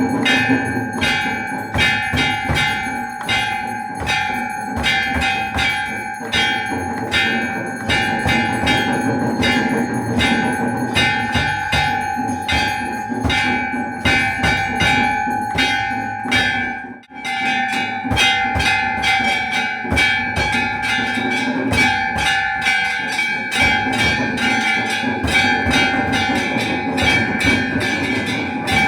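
Hindu temple bells rung continuously for aarti: sustained metallic ringing over fast, regular clapper strikes, about two to three a second. The ringing briefly drops out about 17 seconds in, then resumes.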